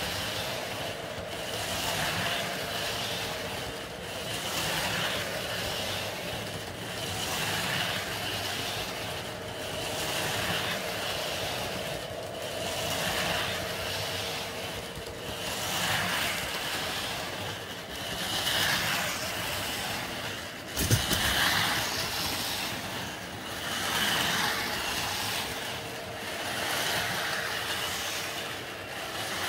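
Carrera Go 1:43 slot cars' small electric motors whining as they lap the track, swelling and fading every two to three seconds, over the steady running of an O scale model train rolling on its track. A single sharp knock about 21 seconds in.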